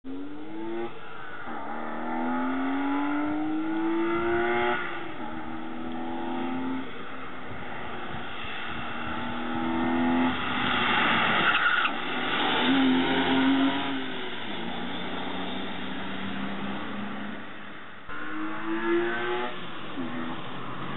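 BMW M50 straight-six engine in an E30, non-VANOS with a Mark D chip, breathing through OBD2 exhaust manifolds into the stock E30 exhaust piping. Its note climbs steeply in pitch with revs, drops and climbs again, and settles into steadier running in the middle. It climbs once more near the end.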